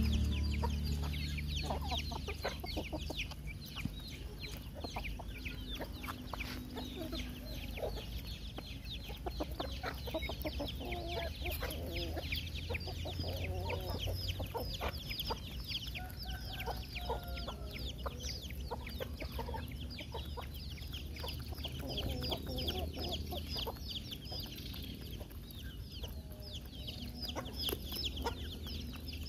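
A flock of chickens clucking, with short calls scattered throughout over a dense patter of quick high ticks and a steady low hum.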